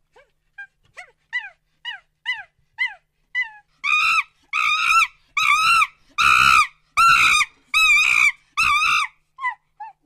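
Monkey calling: a run of short falling cries, about two a second, builds about four seconds in into a string of louder, longer screeching calls that each rise and fall, then tails off into a few short cries near the end.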